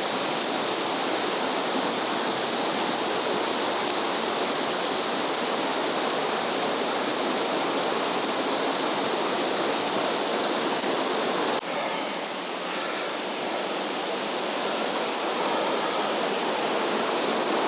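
Steady rush of flowing water, an even hiss with nothing else standing out. About two-thirds of the way through it turns abruptly duller and a little quieter.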